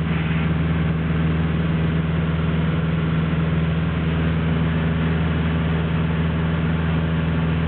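Light aircraft's piston engine and propeller droning steadily in flight, heard from inside the cockpit.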